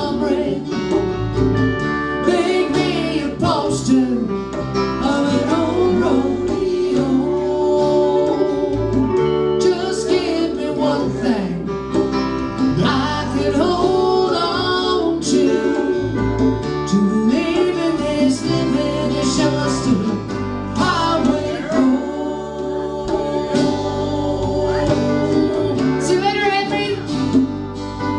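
Live acoustic country music: a woman singing over a strummed acoustic guitar, with a lap steel guitar accompanying.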